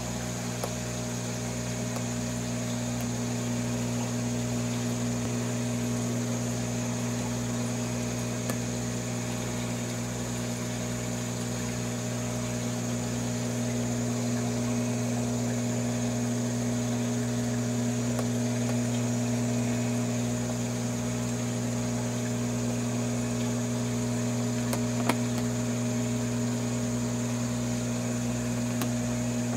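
Aquarium pump running with a steady low hum, and one small click near the end.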